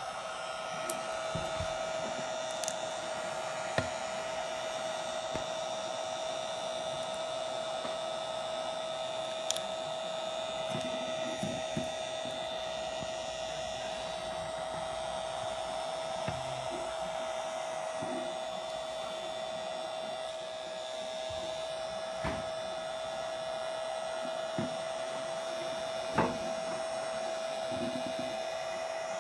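Wagner HT3500 heat gun running steadily, a constant motor whine with the hiss of hot air blowing on a shrink sleeve label. A few light clicks sound over it.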